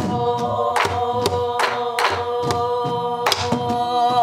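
A woman singing in pansori style, holding one long note that starts to waver with vibrato near the end, while she beats a buk barrel drum with a stick: several sharp strokes at uneven intervals, marking the jangdan rhythm.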